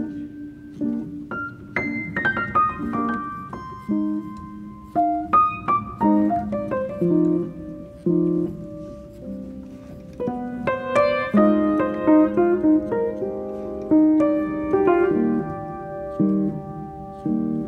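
Background piano music: a melody of struck notes over chords.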